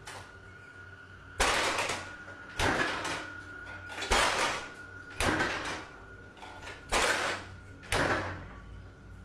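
Refrigerator door being opened and shut repeatedly. There are six sudden, noisy knocks about a second apart, each dying away within about half a second, over a faint steady tone.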